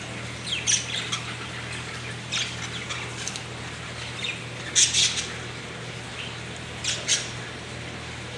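Pet bird squawking in short, harsh calls in four bouts, the loudest a quick pair about five seconds in.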